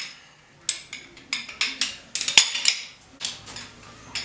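Metal hand tools clinking and tapping against steel engine parts during an engine teardown: a string of short, sharp, irregularly spaced metallic clinks.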